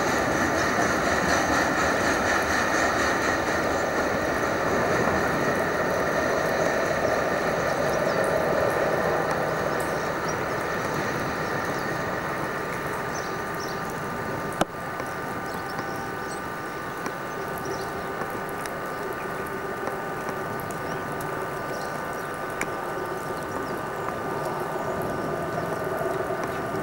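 A heavy freight train of loaded hopper wagons rolling away along the rails, a steady rolling noise with thin high ringing tones over it, growing quieter after about ten seconds. A single sharp click about fifteen seconds in.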